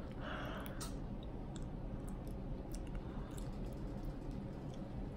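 Faint, scattered clicks over a steady low room hum.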